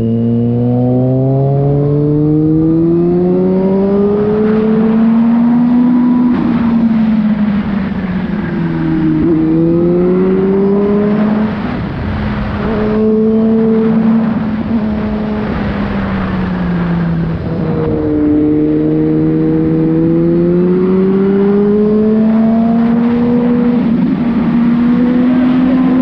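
Car engine under way, its pitch climbing as it pulls and falling back as it eases off or shifts, several times over.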